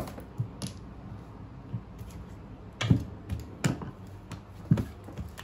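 Irregular clicks and knocks of hard tools and plastic cases being handled and set down, the loudest about three, three and a half and nearly five seconds in.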